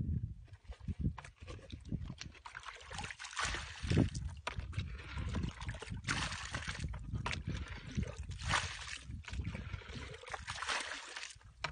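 Muddy water being bailed with a plastic bucket: scooping, sloshing and splashing as the bucket is tipped out onto wet mud, several times over.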